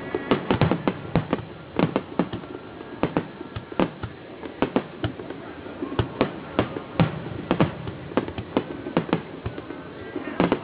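Fireworks shells exploding in quick, irregular succession: many sharp bangs, several a second, with a lower background rumble between them.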